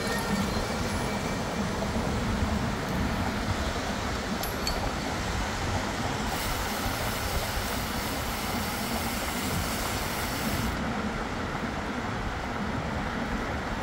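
Steady rumble and hiss of a vehicle in motion, with a higher hiss joining for a few seconds midway.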